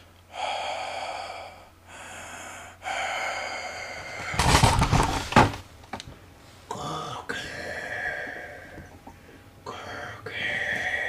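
A series of raspy, breathy gasps and heavy breaths, the loudest about four and a half seconds in.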